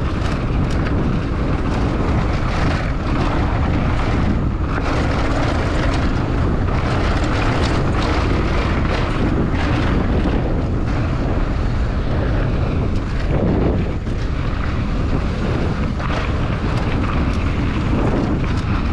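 Downhill mountain bike descending a dry dirt trail at speed: steady wind rush on the microphone over tyre noise on the dirt, with frequent short knocks and rattles from the bike over bumps.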